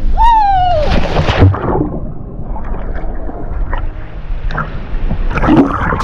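A short high yell that falls in pitch as a swimmer jumps, then a splash as he plunges into a waterfall pool, followed by muffled gurgling and bubbling as the action camera goes underwater with him.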